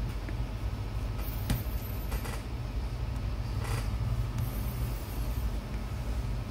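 Steady low background hum, with a few faint clicks and rustles about a second in and again near four seconds.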